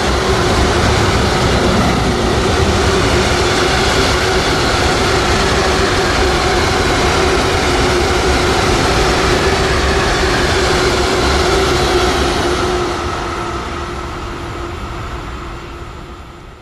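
Freight train of hopper wagons rolling past: a steady noise of wheels on rails with a low running tone, fading away over the last few seconds as the end of the train goes by.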